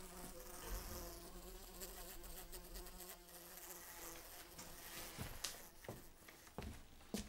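Faint buzzing of a flying insect: a steady low drone with overtones that wavers slightly and fades out about halfway through. A few soft knocks follow near the end.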